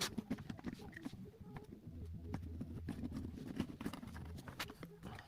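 Faint, scattered clicks and knocks of hands and a knife working on vinyl flooring as it is trimmed to fit the van floor.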